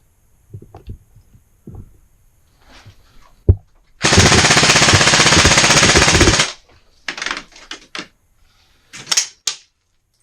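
An airsoft gun firing one long full-auto burst of about two and a half seconds, starting about four seconds in. Scattered light knocks come before it and a few sharp clicks after it.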